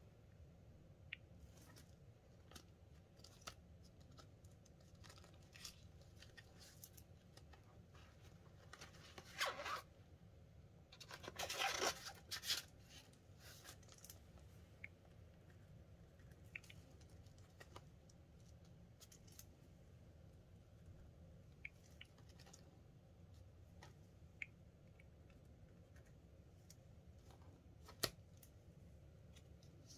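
Mostly near silence with faint scattered ticks. About ten seconds in there is a short rustle, and a longer one around twelve seconds in, of paper and plastic as cash envelopes and a budget sheet are handled. There is a single sharp click near the end.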